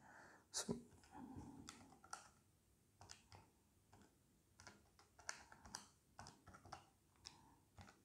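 Buttons of a Casio fx-82MS scientific calculator pressed one after another as a long expression is keyed in: faint, quick, irregular clicks.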